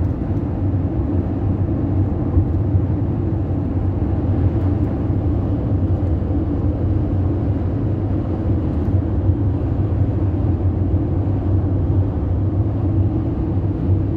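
Van driving at motorway speed, heard from inside the cab: a steady low drone of engine and tyres on the road.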